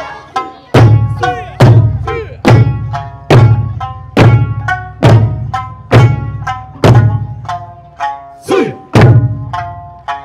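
Large Okinawan eisa barrel drums (ōdaiko) struck together in a steady beat, a little more than once a second, each stroke a deep booming hit. Pitched folk music plays between the strokes, and a falling shout comes about eight and a half seconds in.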